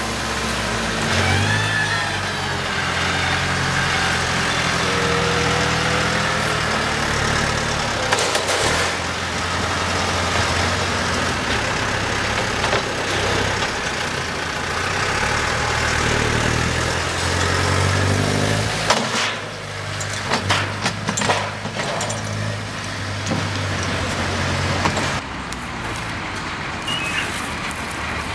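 Farm tractor's diesel engine running under load as it works its front loader, its pitch rising and falling with the revs. About two-thirds of the way in the engine sound drops away and a run of knocks and clattering follows.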